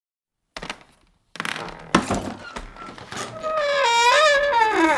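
Horror intro sound effects: a thud about half a second in, a sharp hit near two seconds, then a long eerie wavering tone that slides downward at the end.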